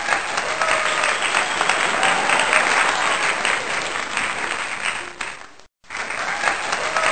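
Audience applauding, a dense patter of many hands clapping. It cuts off abruptly for a moment about five and a half seconds in, then starts again.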